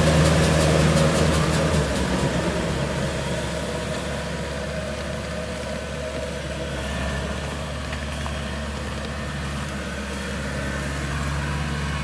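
Diesel engine of farm machinery running steadily. It drops in level about two seconds in, then holds steady.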